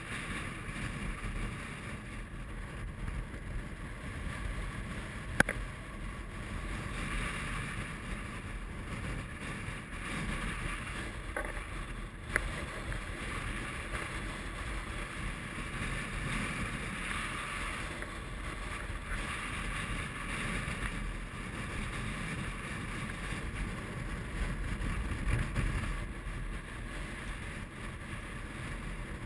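Strong wind blowing across the camera microphone, a steady rumbling noise. There are two sharp clicks, about five and about twelve seconds in.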